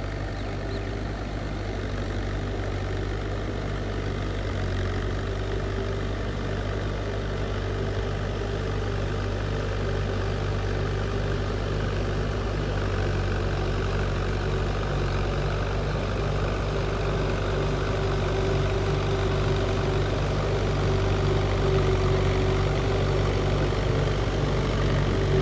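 Farm tractor's diesel engine running steadily under load as it drags a leveller through a flooded, muddy paddy field. It grows gradually louder as the tractor comes closer.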